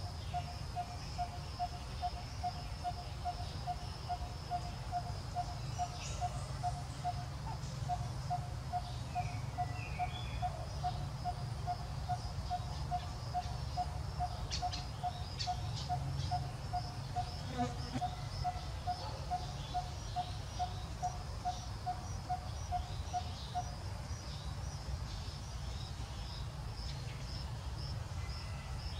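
A bird's single-note call repeated evenly about twice a second, stopping a few seconds before the end, over a high insect buzz and a low rumble.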